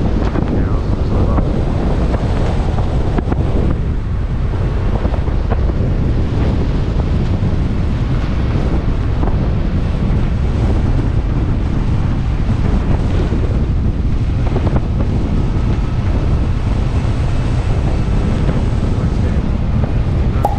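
Steady low rumble and rush of wind buffeting the microphone while the car drives along a snow-covered road.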